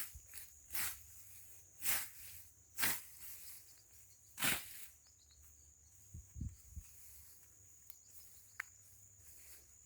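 Footsteps crunching through dry brush and leaf litter: about five short rustling crunches in the first five seconds, then a few soft low thumps and a single sharp click, over a faint steady high hiss.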